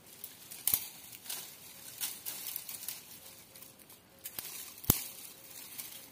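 Dry, thorny brush and twigs rustling and crackling as they are pulled apart and broken by hand, with a few sharp cracks, the loudest about five seconds in.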